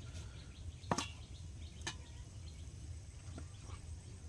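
Quiet open-air background with a steady low hum, broken by a sharp light click about a second in and a fainter one about a second later.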